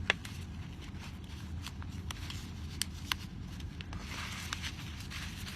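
Folded printer-paper origami pieces being handled and pushed together by hand: light rustling with scattered small clicks and crinkles, a little busier about four seconds in.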